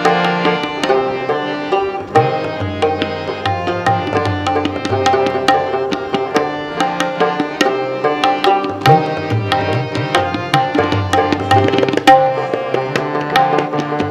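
Instrumental passage of Gurmat kirtan in Raag Kanrha: harmonium holding sustained notes, with a rabab and a jori pair of hand drums playing a quick, dense run of strokes.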